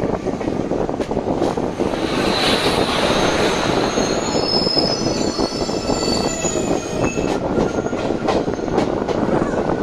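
An oncoming passenger train, an electric locomotive and its coaches, rumbles past close alongside on the next track, heard from a moving train. High wheel squeal rises over the rumble in the middle, and wheels click over the rail joints near the end.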